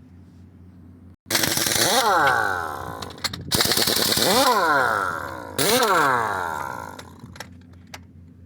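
A pneumatic impact wrench rattling on a loader's wheel nuts in three loud bursts of about two seconds each, undoing them to take the punctured wheel off.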